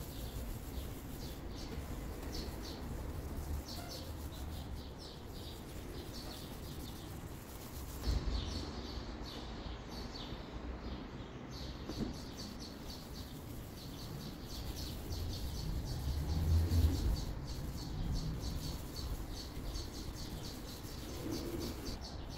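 Polishing sponge rubbed back and forth under medium pressure over a dull plastic headlight lens with polish cream, making quick, repeated squeaks.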